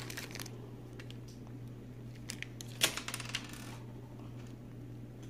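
Light clicks and taps of a crayon and small plastic parts being handled, with one sharper clack about three seconds in and a faint paper crinkle at the very start.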